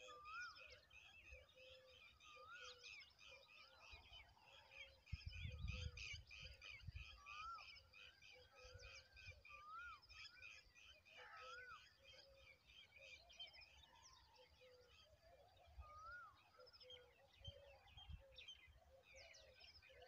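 Faint birdsong from several birds: a busy run of rapid high chirps, a rising whistled note repeated every second or two, and softer lower notes. A low rumble with a few low knocks comes about five to seven seconds in.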